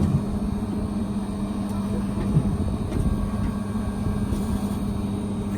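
Bulldozer engine running at a steady speed, a constant low drone.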